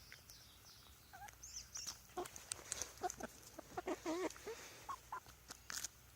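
Chickens clucking while pecking at fresh garden peas: short wavy calls bunched in the middle, among scattered sharp clicks.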